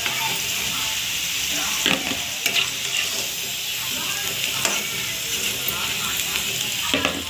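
Potato pakoras sizzling steadily as they deep-fry in desi ghee in a metal kadhai. A slotted metal spatula scrapes and knocks against the pan a few times as the pakoras are lifted out of the hot ghee.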